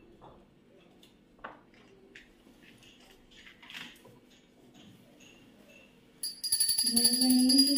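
Faint light clicks and taps of puja items being handled at a home shrine; about six seconds in, a loud devotional song with singing and steady ringing bells starts suddenly.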